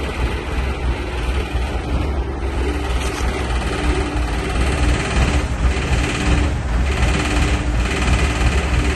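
Asphalt paver's engine running steadily with a heavy low rumble, joined about three seconds in by a faint on-and-off hum.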